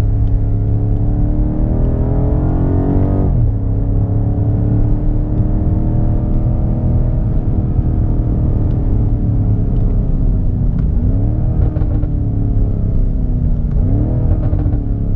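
2019 BMW M5 Competition's twin-turbo V8 and exhaust under way: the engine climbs in pitch under acceleration and drops sharply about three seconds in as the gearbox shifts up, then runs at a fairly steady pitch. Near the end it rises briefly twice and falls away again.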